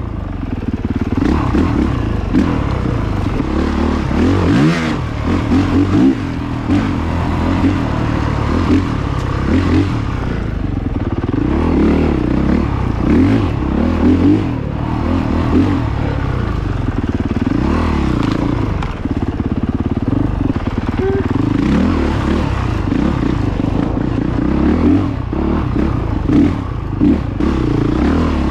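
Honda CRF450RX dirt bike's four-stroke single-cylinder engine under way on a trail, revving up and down every second or two as the throttle is opened and closed.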